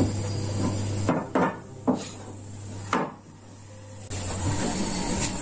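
Three sharp knocks and clunks on wooden floorboards, spread over about two seconds, against a steady low hum that drops out while they sound and returns near the end.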